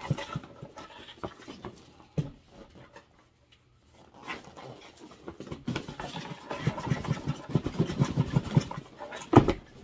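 Styrofoam packing rubbing and squeaking against the inside of a cardboard box as tightly packed contents are worked out, turning into a fast run of scrapes in the second half. A sharp knock of the box near the end.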